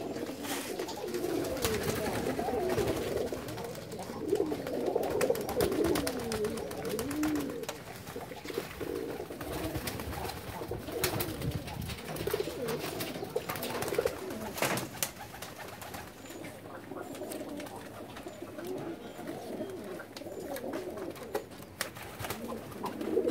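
A loft of fancy pigeons cooing, many coos overlapping, busiest in the first several seconds and picking up again near the end. Scattered sharp clicks and knocks come in between.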